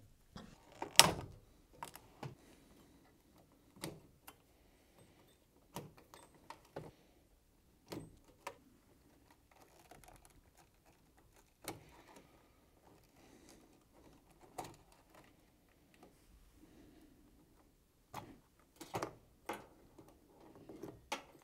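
Plastic wiring connectors being worked loose and pulled off a washing machine's display circuit board, with the plastic control panel being handled: scattered sharp plastic clicks and knocks. The loudest comes about a second in, and there is a quick cluster near the end.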